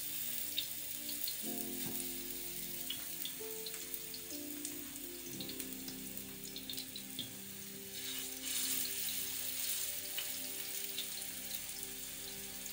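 Minced-meat kebab patties frying in hot oil in a non-stick pan: a steady sizzle with scattered crackles, swelling about two-thirds of the way through as another patty goes in. Background music plays underneath with held, slowly changing notes.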